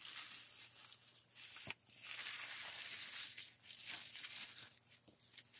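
Tissue paper and a clear plastic bag rustling and crinkling in a run of soft swells as they are handled, with one sharp click a little under two seconds in.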